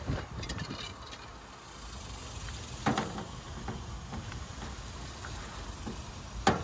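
Wind buffeting the microphone as a steady low rumble, with a few sharp knocks and rustles of items being handled in a pickup bed, the loudest about three seconds in and near the end.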